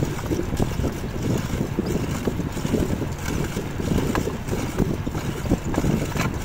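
Wind buffeting the microphone of a moving bicycle rider, a continuous low, fluttering rumble with a few faint knocks.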